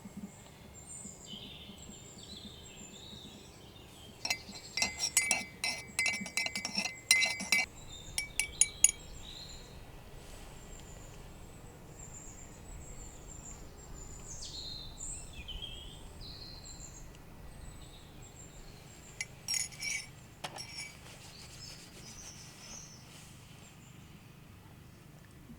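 Tableware clinking, hard ringing taps in two flurries (a longer run about four seconds in and a shorter one near the twenty-second mark). Between them, birds call and chirp.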